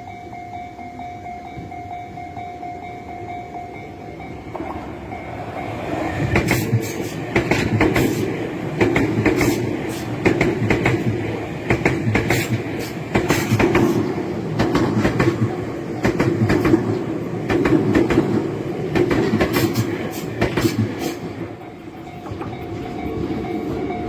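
A Tobu Tojo Line electric train passes over a level crossing, its wheels clattering over the rail joints for about fifteen seconds. A steady level-crossing warning bell tone sounds for the first few seconds before the train arrives and comes back faintly near the end.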